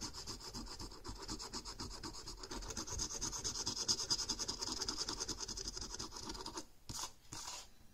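A coin scraping the latex coating off a paper scratchcard in quick back-and-forth strokes. It stops about seven seconds in, after two last short strokes.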